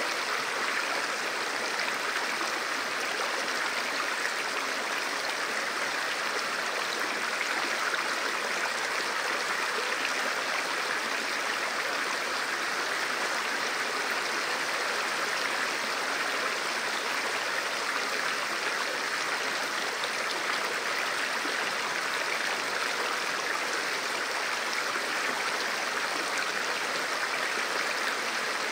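Swift mountain river, the Matter Vispa, rushing steadily over rocks.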